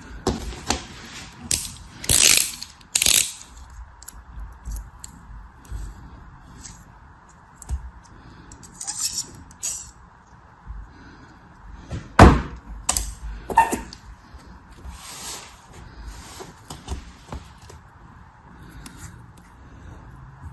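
Packaging handled by hand during an unboxing: crinkling, clicks and taps, with a sharp knock about twelve seconds in.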